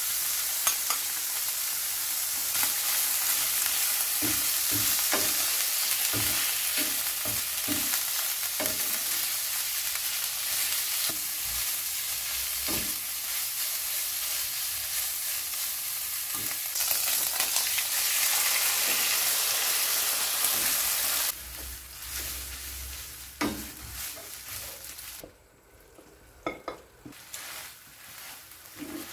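Lobster meat and tomalley frying in garlic oil in a nonstick pan, sizzling steadily while a wooden spatula stirs and knocks against the pan. About three-quarters of the way through the sizzle drops away suddenly, leaving quieter stirring with a few taps.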